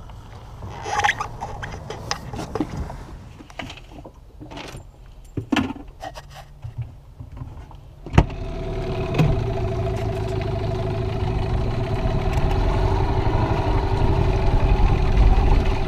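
Irregular knocks, clicks and rattles of gear being handled while a dinghy is launched. About eight seconds in a small motor starts with a sharp clunk and runs steadily, growing slowly louder.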